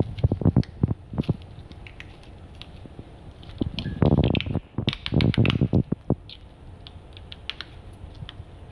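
A freshly set liquid-applied protective film being peeled by hand off a glossy painted panel: sticky crackling and small clicks. The sound comes in two louder bursts, one at the start and one about four to six seconds in, with scattered light clicks between them.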